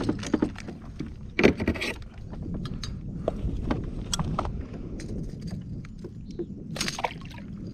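Fishing rod, reel and kayak gear being handled: scattered small clicks and knocks, a sharper one about a second and a half in and another near the end, over a steady low rumble.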